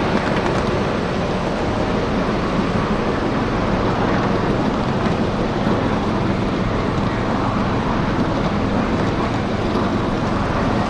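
Miniature ride-on train rolling along its small-gauge track, heard from a passenger car: a steady rumble and rattle of the cars' wheels on the rails.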